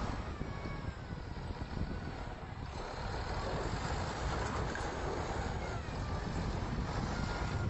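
Diesel wheel loader's engine running steadily under load as its bucket pushes into a pile of earth, with a faint whine that slides slowly in pitch.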